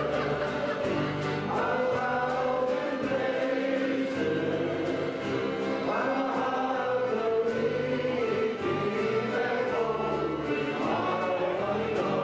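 A small band playing live, with several men's voices singing together over accordion, acoustic guitars and fiddle.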